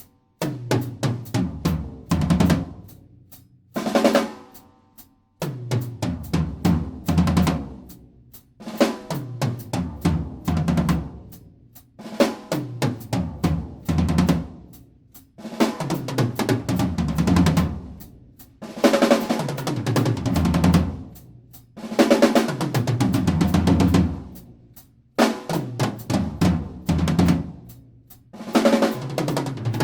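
Acoustic drum kit played in short fills for a sound check: about ten bursts of rapid hits across the kit, each two to three seconds long, with brief pauses as the drums and cymbals ring out between them.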